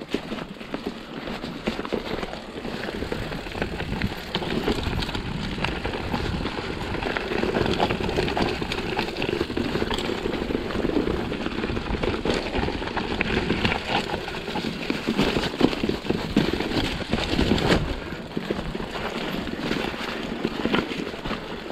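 Continuous crunching and rattling of tyres rolling fast over a rough, stony trail, with the bike jolting over bumps and wind buffeting the microphone.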